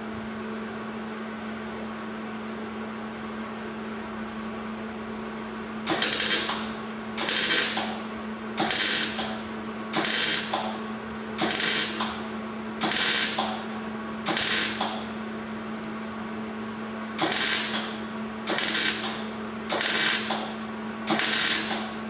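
Wire-feed welder (a small Hobart 130XL) stitch-welding thin sheet-metal patch panel: about a dozen short crackling spurts of the arc, each under a second, roughly one every second and a half, starting about six seconds in with a short break midway. A steady low hum runs underneath.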